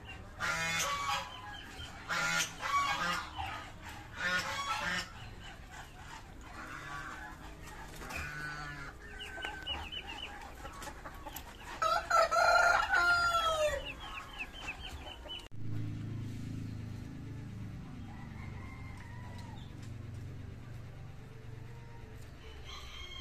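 Chickens clucking in a series of loud calls, then a rooster crowing about twelve seconds in, its call rising and falling away at the end. Sound cuts abruptly about fifteen seconds in to a quieter steady low hum.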